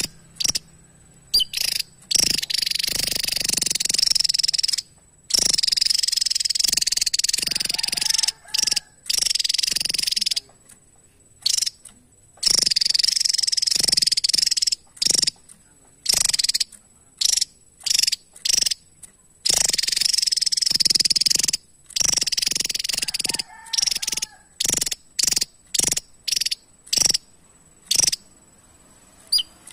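Javan tesia singing: runs of rapid, high-pitched song lasting several seconds each, broken by short pauses and single sharp notes.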